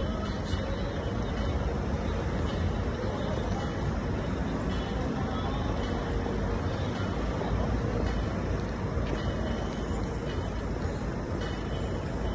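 Steady city street noise: a continuous low traffic rumble with no distinct events.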